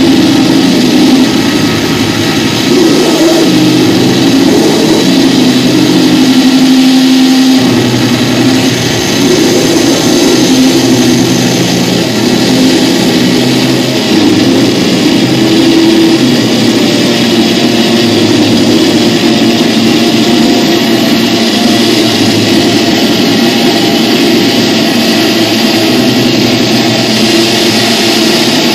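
Loud live noise-drone music: a dense, unbroken wall of hiss and hum, with low droning tones that change every few seconds.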